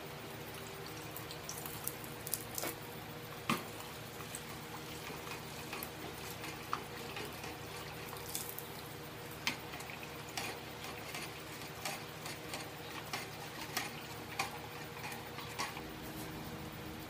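Red-hot railroad-spike knife blade quenched in a can of motor oil: the oil crackles and sizzles with scattered sharp pops over a steady low hum.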